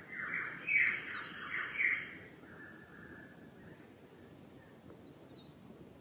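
Wild birds calling at dawn. One bird gives a run of loud descending calls, about two a second, that stop about two seconds in, followed by a shorter flat call and faint high chirps.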